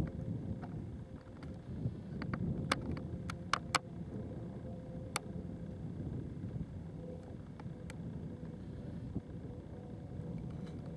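Wind buffeting the camera microphone as a low rumble, with a cluster of sharp clicks between about two and four seconds in and a couple more later from the camera being handled on its tripod.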